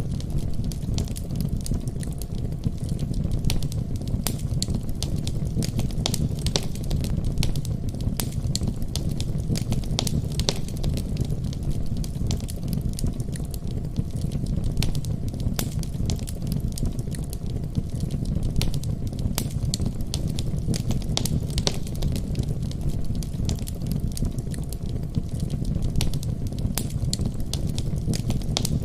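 Wood fire burning in a fireplace: a steady low rumble of flames with many sharp, irregular crackles and pops.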